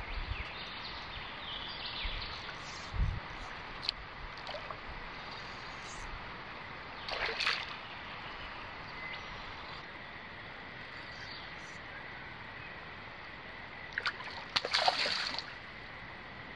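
Water splashing in short bursts over steady river background noise, the longest and loudest near the end, as a hooked fish thrashes at the surface close to the bank.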